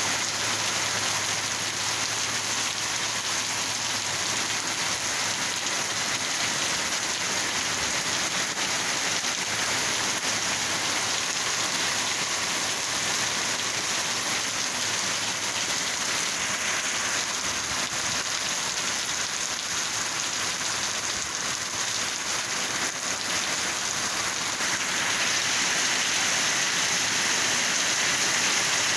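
Steady heavy rain falling and pattering on surfaces, an even hiss that gets a little louder near the end.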